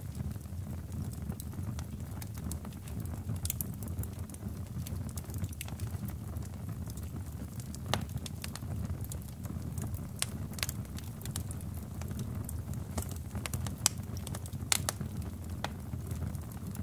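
Melted plastic of a small fan burning: a steady low flame rumble with sharp crackles and pops at irregular intervals, the loudest a little past the three-quarter mark.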